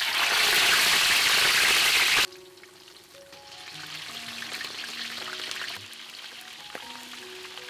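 Raw fish pieces going into hot oil in a steel wok and frying. The loud sizzle cuts off abruptly a little after two seconds, and a quieter, steady crackling sizzle follows.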